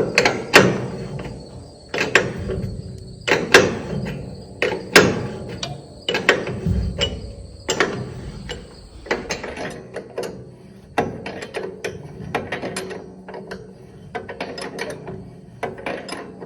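Hand ratchet wrench working bolts on a combine: sharp metal clicks and knocks about a second apart, turning to quicker, lighter ratchet clicking in the second half.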